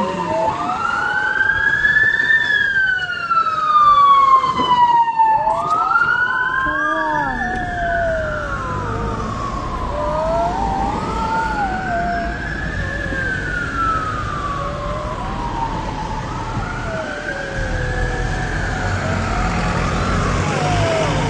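Emergency vehicle siren wailing, rising and falling slowly about every five seconds, with a second siren wavering below it. Road traffic rumbles underneath.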